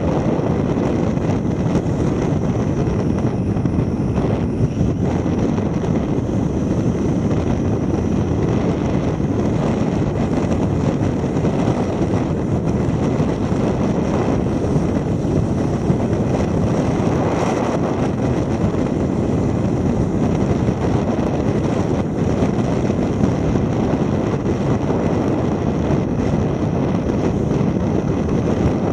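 A car cruising steadily at highway speed: even rushing wind and tyre noise, picked up by a camera mounted on the outside of the car.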